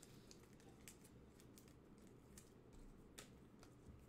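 Near silence: room tone with faint, scattered light clicks at an uneven pace.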